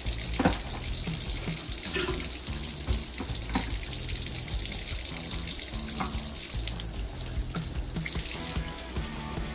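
Kitchen faucet running a steady stream into the sink, with a few sharp knocks as plastic bottles are handled on the counter beside it; the loudest knock comes about half a second in.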